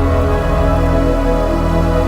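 Background music with slow, sustained synthesizer chords.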